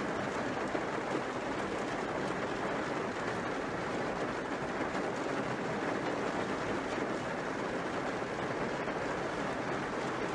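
Heavy rain falling on a car's roof and windshield, heard from inside the car as a steady, even hiss.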